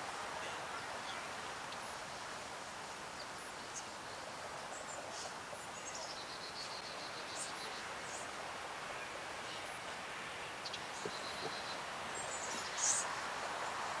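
Swamp morning ambience: small birds calling over a steady hiss, with scattered short high notes and two quick runs of stepped notes, and a sharp high call near the end.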